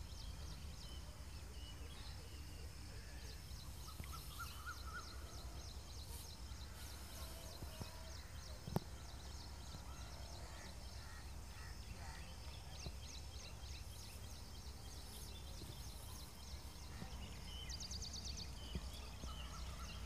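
Rural outdoor ambience: small birds chirping in short, repeated high notes, with a rapid high trill near the end, over a low steady rumble. A single sharp click sounds about nine seconds in.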